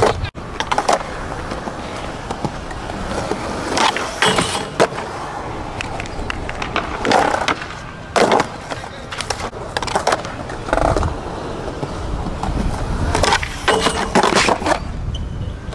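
Skateboard wheels rolling on concrete, broken by the sharp pops and clacks of tricks. A kickflip pops and lands about seven to eight seconds in. Near the end the board slides along a metal handrail.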